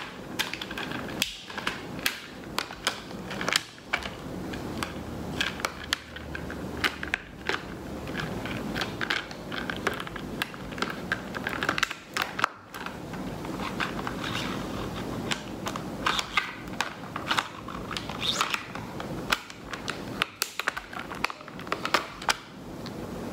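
Plastic case of a 40-colour Staedtler pen set and its pens being handled: irregular clicks and taps with rustling of packaging and paper in between.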